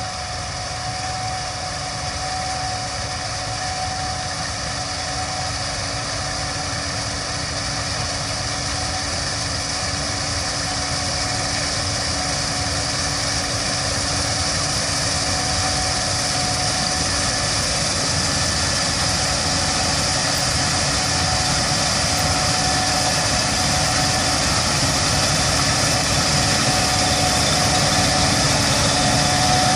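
Gleaner S77 combine running steadily as it harvests soybeans, its engine and threshing machinery a steady drone with a couple of held tones, slowly growing louder.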